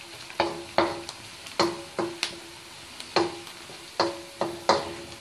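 Wooden spatula knocking against a metal wok while stirring frying onions, about two knocks a second, each leaving a short ring at the same pitch, over a faint sizzle.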